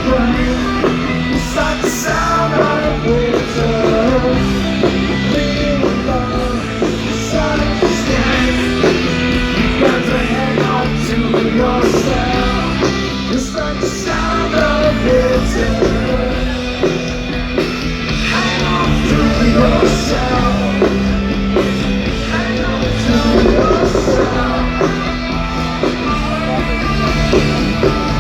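Rock band playing live through a stadium sound system: electric guitars, bass and drums in a steady beat.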